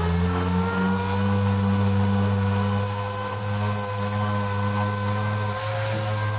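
Random orbital sander running steadily as it dry-sands body filler on a car fender: a steady motor whine over a hiss, its pitch rising slightly in the first second or two.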